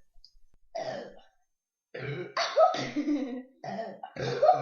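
A woman burping several times: a short burp about a second in, then a long, loud burp about two seconds in, and more burps near the end.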